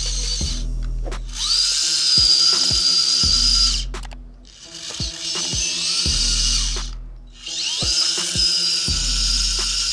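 Small electric motor of a homemade mini tractor whining. It spins up to a steady high pitch about a second in, dies away around four seconds, and spins up again near the end. Background music with a steady beat plays throughout.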